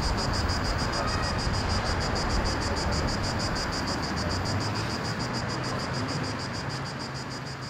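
Outdoor street ambience: a low traffic rumble under a steady, high pulsing buzz that beats about seven times a second, slowly fading out.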